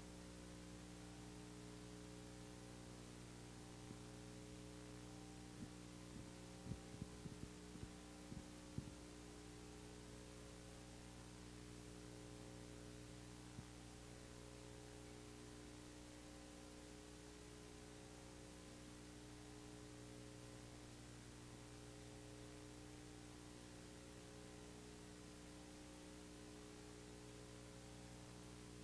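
Near silence: a steady electrical mains hum with faint hiss, with a short run of faint clicks about six to nine seconds in and one more a few seconds later.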